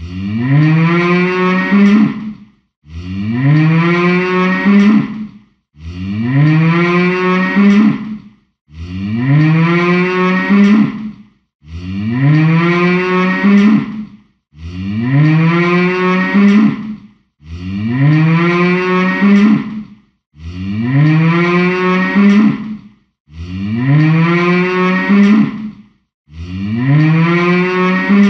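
A cow mooing: the same long moo repeated ten times, about every three seconds, each call rising in pitch at its start and then held.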